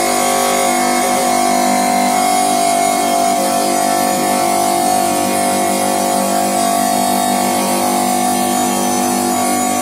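Water-cooled bridge tile saw running steadily, its motor humming with a constant whine as the diamond blade is pushed through a glazed ceramic tile.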